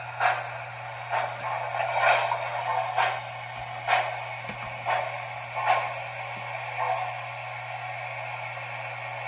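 Sound system of an MTH O gauge USRA steam switcher model playing steam exhaust chuffs, about one a second, thinning out near the end, over a steady low hum.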